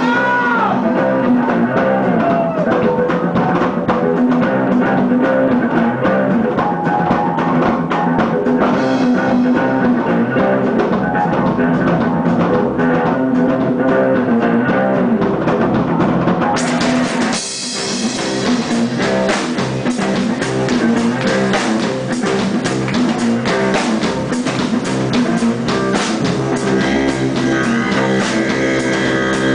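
Live rock band playing, with drum kit and guitar; a man's sung line trails off at the start. In the second half a long wind horn, played into the vocal microphone, joins the band and the sound fills out.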